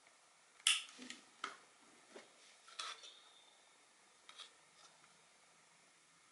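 Light metallic clicks and taps of hand tools against a motherboard and a newly fitted capacitor during soldering: a string of sharp, irregular clicks, the first the loudest.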